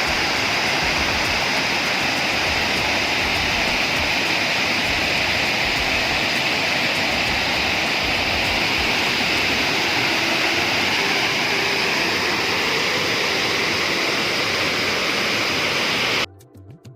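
Waterfall with water pouring hard: a loud, steady rushing roar that cuts off suddenly near the end.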